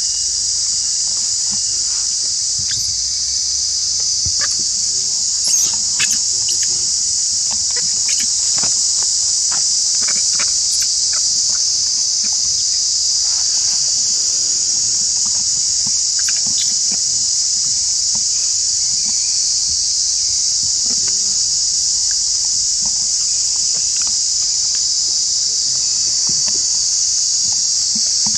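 Steady high-pitched drone of insects, with scattered light clicks and rustles, briefly a little louder about five and a half seconds in.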